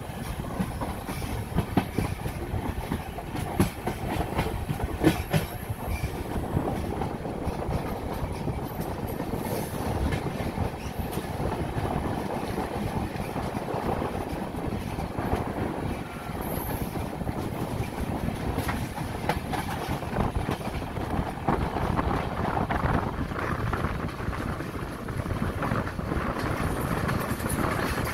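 Moving passenger train heard from an open coach door: a steady rumble of the wheels running on the rails, with the clack of rail joints. A few sharper clacks come between about three and five seconds in.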